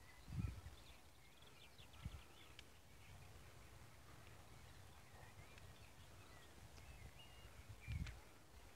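Faint birdsong: scattered chirps and short calls from several birds. Three brief low rumbles, about half a second in, about two seconds in and near the end, sound like wind or handling on the microphone.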